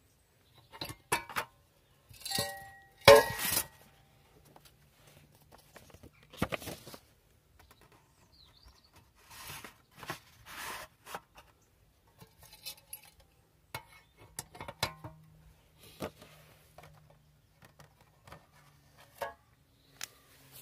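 A metal pellet-catcher target holder being handled while paper target cards are swapped: scattered clinks and knocks with short paper rustles, the loudest knocks about two and three seconds in.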